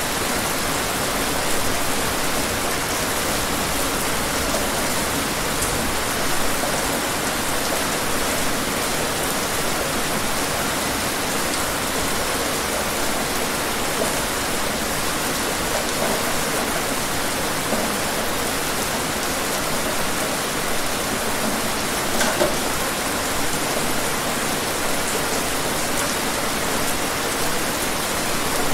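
Steady rain: an even hiss of many drops, with now and then a single drop standing out.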